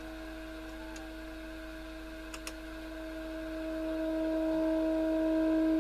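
Steady audio test tone from a Perdio Continental PR73 transistor radio's speaker, the signal generator's modulation coming through the set during IF alignment. The tone grows steadily louder from about halfway through as the IF transformer cores are tuned toward maximum signal. Two faint clicks come just before it starts to rise.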